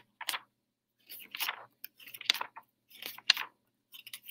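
Pages of a comic book being flipped and handled: about five short, crackly paper rustles in quick succession.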